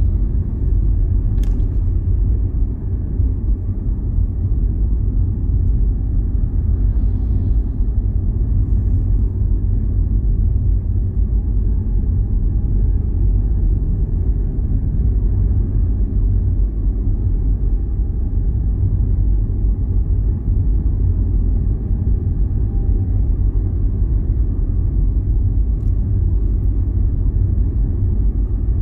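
Wind buffeting the microphone: a loud, low rumble that flutters in level.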